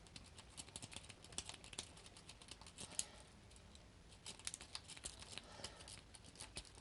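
Faint, irregular metallic clicking of a city rake being scrubbed in and out of a pin-tumbler padlock's keyway under tension, rattling the pins.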